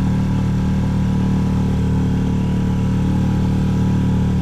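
Motorboat engine running steadily under way, a low even drone with no change in pitch.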